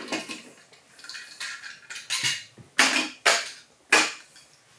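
Small plastic Mini-Z RC car chassis and parts being picked up and set down on a tabletop: a run of light clicks and clatters, the sharpest about three and four seconds in, with some brief scraping between them.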